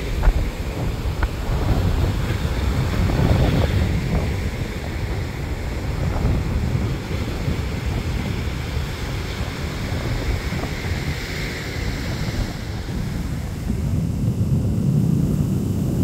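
Ocean surf breaking and washing ashore, with wind rumbling on the microphone that grows stronger near the end.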